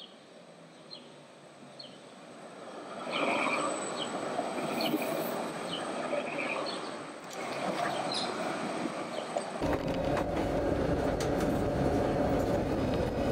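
Modern low-floor tram rolling along its track, a low rumble with a few short high squeaks. About ten seconds in, the louder steady rumble and hum of riding inside a moving tram.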